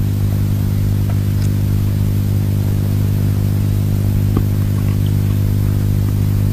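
A steady low electrical hum, a buzz of even overtones that holds unchanged, with a few faint ticks.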